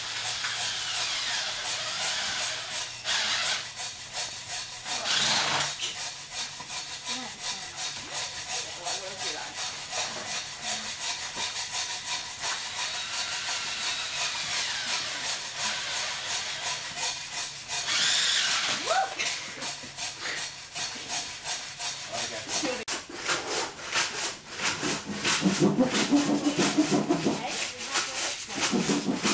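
Cordless drill boring holes through thick plastic pipe, the bit chattering and grinding through the wall. Near the end it gives way to rhythmic hand rubbing, about four strokes a second, as the cut edges of the holes are sanded smooth.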